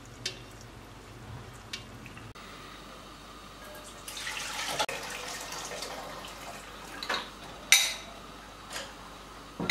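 Broth trickling and dripping from a pan into a saucepan. About four seconds in, a soft rushing noise lasts a couple of seconds. In the second half a metal ladle and pot lid clink against an aluminium stock pot four times, the loudest clink ringing.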